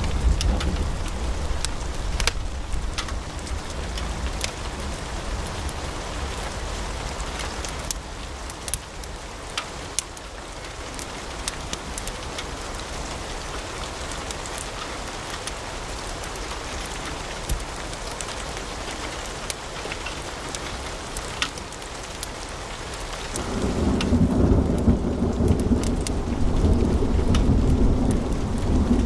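Log fire burning in a fireplace: scattered sharp crackles and pops over a steady low rushing sound. Toward the end the low rushing swells noticeably louder.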